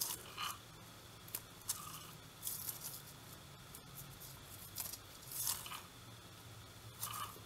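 Faint rustling and scratching of yarn against a wooden knitting needle as stitches are picked up along the edge of a knitted piece: a handful of short, soft strokes a second or so apart.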